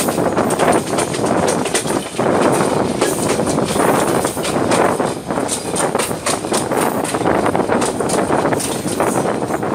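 Running noise of a moving passenger train heard from a coach window: the wheels clatter with many irregular clicks as they cross rail joints and station pointwork, over a steady rush of air.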